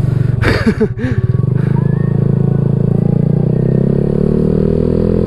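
Honda Vario 150 scooter's single-cylinder engine running through a Black Devil R2 Seca Long aftermarket exhaust while riding. It holds a low, steady note that climbs slowly in pitch as the scooter accelerates, with a brief rush of noise about half a second in.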